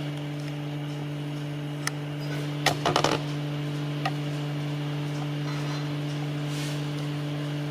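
A steady low hum, with a few sharp metallic clicks and a short cluster of knocks about three seconds in, as the industrial sewing machine head and its mounting bolts are handled.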